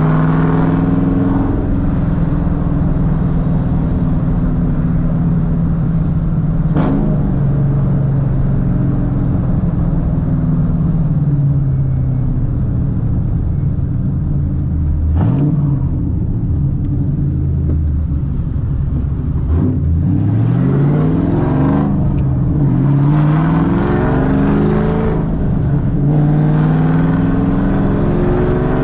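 Cammed 4.6L 2V Ford V8 on Comp XE262AH cams, exhausting through long-tube headers, an H-pipe and straight pipes, revving: the engine note rises and falls several times, with quick climbs in pitch in the second half.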